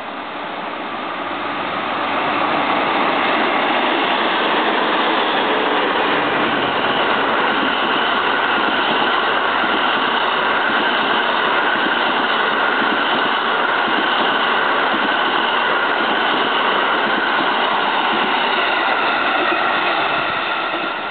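The Cassiopeia sleeper express passing through at speed behind DD51 diesel locomotives. A steady, loud noise of wheels on rail builds over the first two seconds as the locomotive reaches the platform, holds while the long rake of double-deck sleeping cars goes by, and drops away near the end as the observation car passes.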